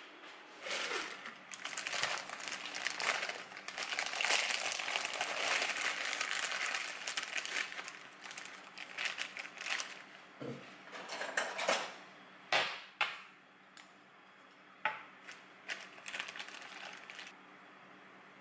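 Plastic food bag crinkling and rustling as it is handled and opened for about the first ten seconds, followed by scattered sharp clicks and light knocks.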